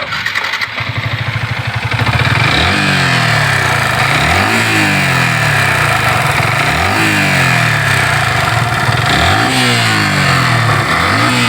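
Yamaha R15 V3's single-cylinder engine idling, then revved in about five quick throttle blips, each rising sharply and falling back, with the harsh rattling the mechanic calls a 'karkar' knock. He puts it down to worn connecting rod, cylinder block, cam, rocker and timing chain, all to be replaced.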